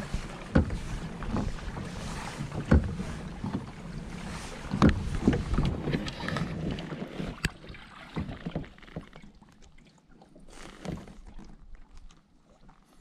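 Wind on the microphone and water against a kayak hull, with several sharp knocks in the first eight seconds. It turns quieter after about eight seconds, leaving only small ticks.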